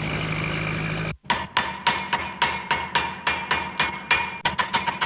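A steady engine hum cuts off abruptly about a second in. A run of sharp, ringing knocks follows, coming faster and faster toward the end.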